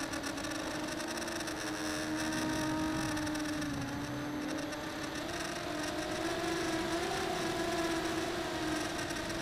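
Steady whine of a radio-controlled model's electric motors and propellers, heard close up from on board. The pitch dips slightly, then rises a little through the middle and settles again near the end.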